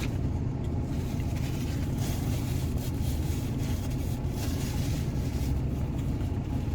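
A steady low rumble of a vehicle engine running, with faint light clicks and rustles on top.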